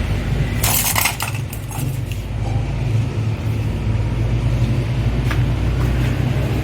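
Metal parts clinking and rattling as they are handled, about a second in, with a couple of faint ticks later, over a steady low hum.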